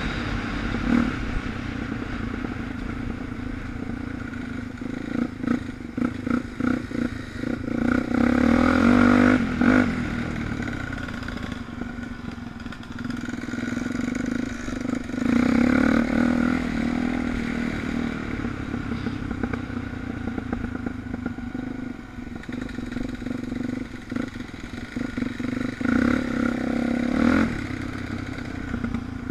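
Suzuki DR350 single-cylinder four-stroke engine running on a trail ride, its revs rising and falling with the throttle and swelling twice, about a third and halfway through. Short knocks and clattering come from the bike working over rough ground.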